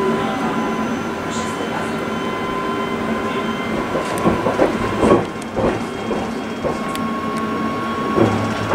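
Tram running along its track, heard from inside the front of the car, with a steady electric motor whine over the rolling noise. A few clunks in the middle as the wheels run over points.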